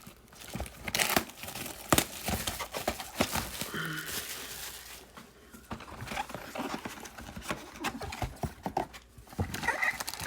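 Plastic shrink wrap crinkling and tearing as a sealed box of trading cards is unwrapped and opened, in an uneven run of sharp rustles and rips.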